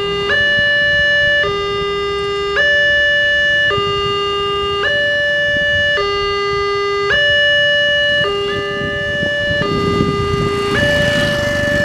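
Railway level-crossing warning alarm: an electronic two-tone signal alternating a higher and a lower note, each held about a second, sounding while the barriers are down for an approaching train. Motorcycle engines run underneath and grow louder near the end.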